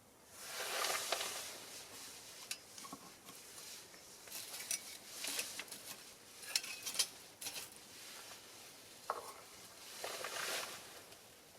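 Small fire of burning pine cones and cherry branches crackling and popping, with sharp snaps scattered throughout. Two louder swells of hiss, one just after the start and one near the end, each lasting about a second.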